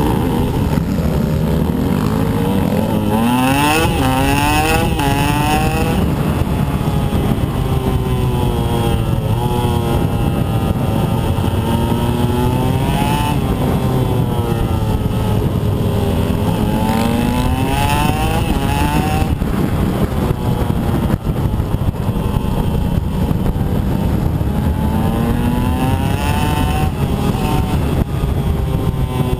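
Husqvarna TE125 two-stroke dirt bike engine being ridden hard off-road, its pitch repeatedly climbing under acceleration and dropping back through the gears.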